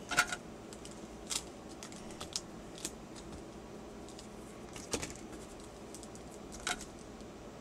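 Sealed foil Pokémon card booster packs being handled and set down on a table: a few scattered soft rustles and light taps.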